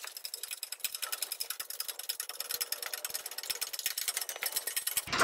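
Hand-pumped hydraulic jack of a shop engine hoist being worked to lift a truck's half-ton front axle, heard as a fast, even run of light mechanical clicks.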